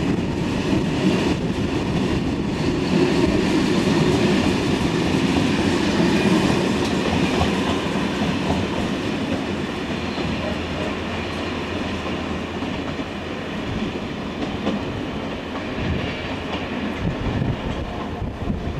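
A train of passenger coaches rolling past on the track, its wheel and rail noise easing off over the second half as the last coach draws away.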